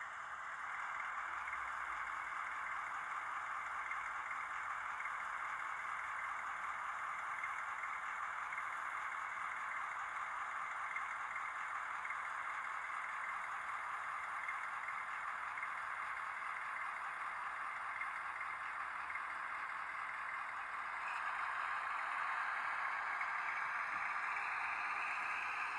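Sound decoder in an N-scale Minitrix V 140 model locomotive playing a diesel engine running sound through its tiny loudspeaker while the model drives. The sound is thin, with no bass, and steady, growing a little louder about 21 seconds in.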